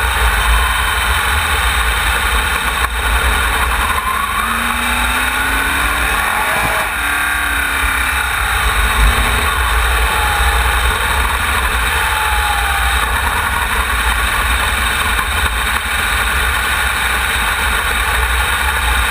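Onboard sound of a wingless sprint car's V8 engine at racing speed on a dirt oval, its pitch rising and falling through the turns, under heavy wind buffeting on the GoPro's microphone.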